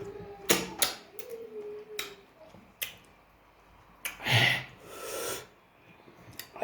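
A person eating close to the microphone: several sharp, crisp bites or crunches in the first three seconds, then a loud breathy sniff about four seconds in and a softer breath after it.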